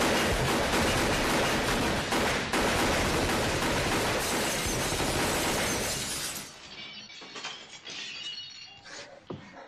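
Rapid automatic gunfire with glass shattering, stopping about six seconds in, then scattered clinks of falling glass and debris.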